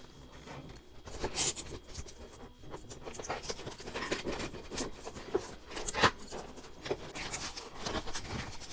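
Hands opening a toy doll's plastic and cardboard packaging: scratchy rustling and rubbing with scattered clicks, a sharper click about six seconds in.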